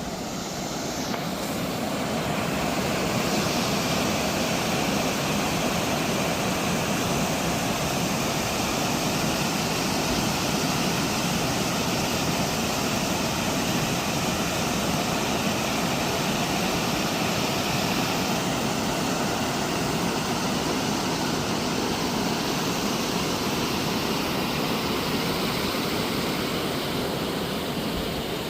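Steady rushing of running mountain water, with no break or change.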